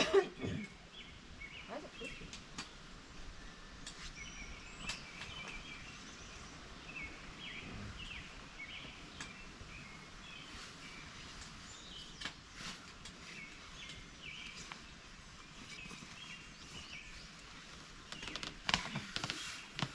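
Small birds chirping in woodland, with short repeated calls throughout over a steady outdoor hush. There is a brief loud sound right at the start, and a run of clicks and rustling near the end.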